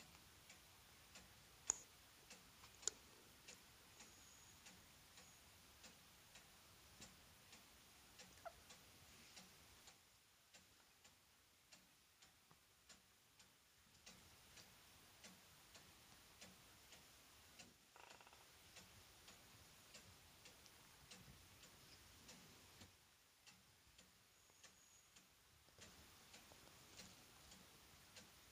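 Faint, even ticking, about two ticks a second, over near silence, with two sharper clicks about two and three seconds in.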